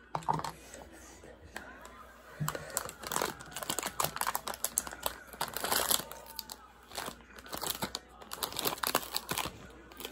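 Foil snack bag crinkling and rustling as it is handled and opened, in dense, irregular crackles, with a soft knock near the start.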